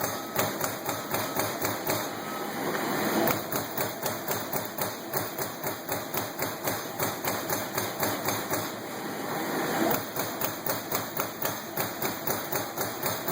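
Trumpf TC 500 CNC punch press with a hydraulically driven ram punching sheet metal: an even, rapid series of hits, about three a second. Twice a louder rushing noise swells for about a second over the punching.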